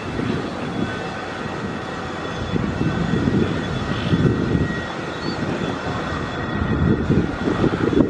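Wind buffeting the microphone: a steady, uneven low rumble over faint outdoor city background noise.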